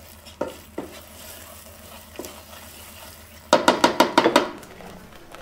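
A wooden spoon stirring and scraping a thick roux of flour toasted in butter in a stainless steel pot, with a few single knocks. About halfway through comes a quick run of sharp, ringing knocks as the spoon is rapped against the pot.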